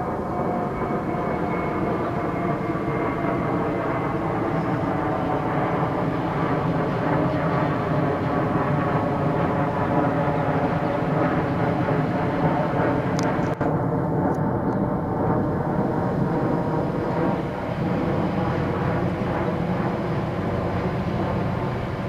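TasRail TR-class diesel-electric locomotives hauling a loaded log train, their engines giving a steady drone with several layered tones.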